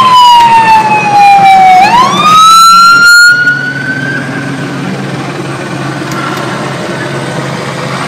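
Police car siren wailing: its pitch falls slowly, climbs back up about two seconds in, and cuts off after about three and a half seconds, leaving a steady low hum.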